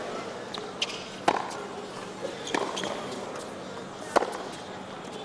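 Tennis rally: a ball struck by racquets with sharp pops every second or so, about four hits, the ball going back and forth over the net, with a quiet arena crowd behind.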